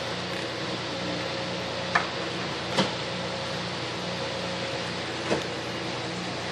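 Steady mechanical hum and hiss of a fire engine running at the scene, with a low drone pulsing on and off several times a second. Three sharp cracks cut through it, about two, three and five seconds in.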